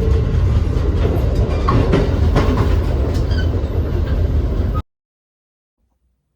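Passenger train running on the rails: a loud, steady rumble with scattered clicks, cutting off suddenly about five seconds in.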